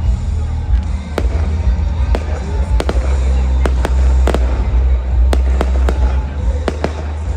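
Fireworks bursting overhead: about a dozen sharp bangs and cracks at irregular intervals, several coming close together, over a steady low rumble.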